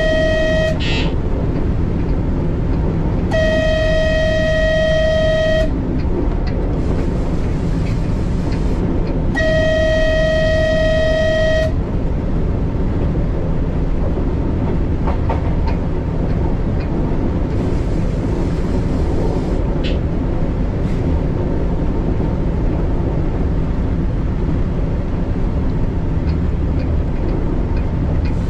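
Passenger train running with a steady rumble, its horn sounding long single-pitch blasts: one ends just as the sound begins, then two more of a couple of seconds each come about six seconds apart. After that only the running noise goes on, with a few faint rail clicks.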